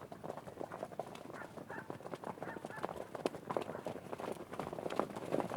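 Horses galloping: a rapid, irregular patter of hoofbeats that grows louder near the end. A few short higher-pitched calls come through in the middle.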